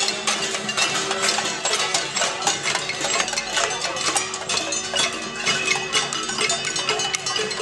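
A marching crowd banging pots and pans in a casserole protest: a dense, irregular clatter of metal strikes, with a steady low tone held underneath.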